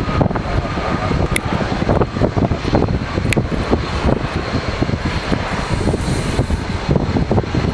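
Boeing 747's jet engines running with a steady, loud rumble and hiss, with irregular low buffeting.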